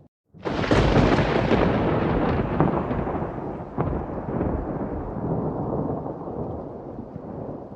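A thunderclap that breaks in suddenly about half a second in with a loud crack, then rolls on as a deep rumble that slowly fades.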